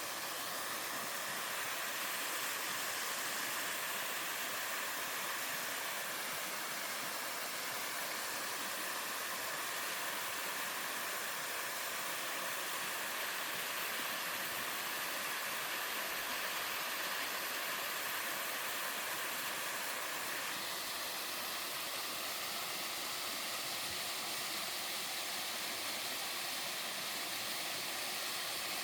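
Three-tier mountain waterfall cascading into a valley stream: a steady rush of falling water. Its tone shifts slightly about two-thirds of the way through.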